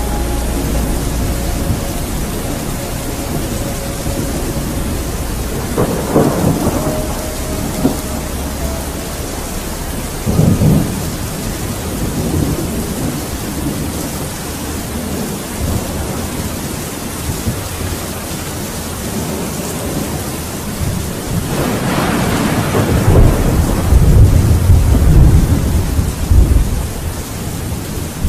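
Steady rain with rolling thunder: short rumbles about six and ten seconds in, then a long, loudest roll of thunder from about twenty-two seconds until near the end.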